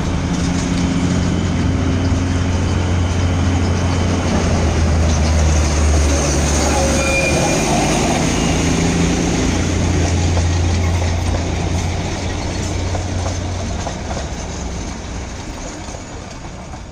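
O scale model of a Darjeeling Himalayan Railway train running along the layout's track: a steady low hum with rolling wheel and rail noise, growing fainter over the last few seconds as the train moves away.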